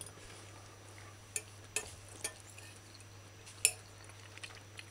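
A metal fork scraping and clinking against a ceramic plate while scooping rice, with about four short clinks. The loudest comes about three and a half seconds in.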